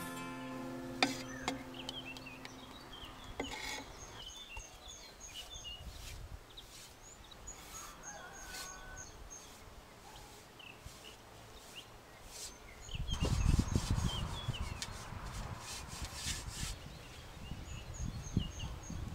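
Background music fades out in the first couple of seconds, leaving small birds chirping and twittering on and off. There are occasional wooden knocks, and from about two-thirds of the way in a louder, low rubbing noise of hand work at the wooden table.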